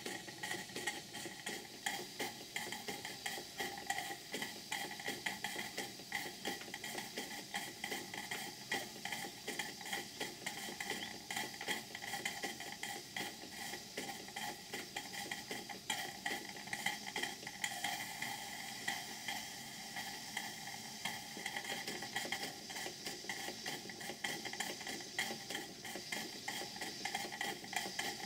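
Two model live-steam engines, a hypocycloidal Cyclope-type engine and a beam engine, running together on steam: a fast, steady clatter of ticks from their exhaust beats and moving parts.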